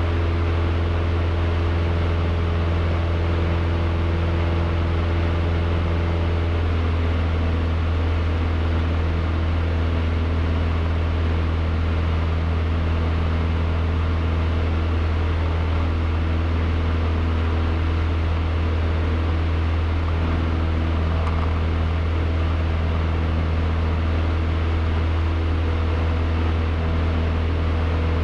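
Cessna 152's four-cylinder Lycoming piston engine and propeller droning steadily, heard from inside the small cabin.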